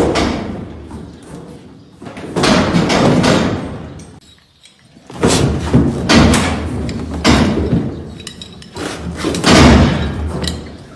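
Metal cattle crush banging and rattling in four loud bursts a couple of seconds apart, while a pipe wrench twists the hardened covering off the horn of the bull held in it.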